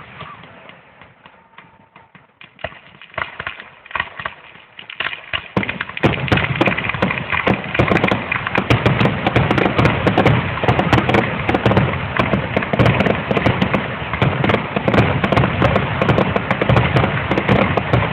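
Fireworks going off: a few scattered pops, then about five seconds in a dense, rapid crackle of many small bangs that keeps going.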